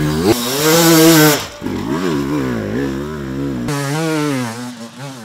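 Enduro motorcycle engine revving hard, its pitch repeatedly rising and falling as the throttle is worked. It is loudest in the first second or so.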